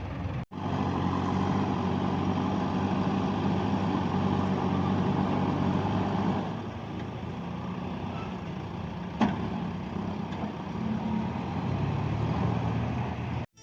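JCB 3DX backhoe loader's diesel engine running steadily while the machine works, with one sharp knock about nine seconds in.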